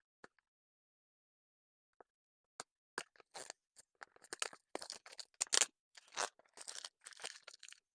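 Packaging being handled: a couple of faint clicks, then from about two and a half seconds in a run of sharp crinkling, crackling and tearing noises.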